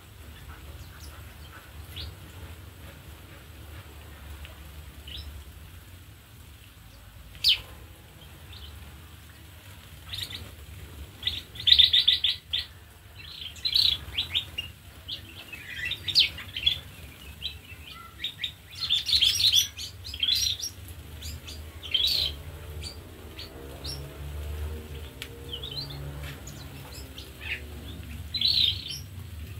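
Small birds in an aviary chirping and calling, short high notes in irregular clusters, sparse at first and busiest in the middle, over a low steady hum.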